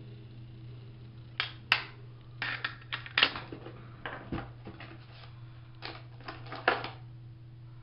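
Small hard makeup containers and tools clicking and clattering as they are picked through and set down: a dozen or so sharp, irregular clicks over a steady low hum.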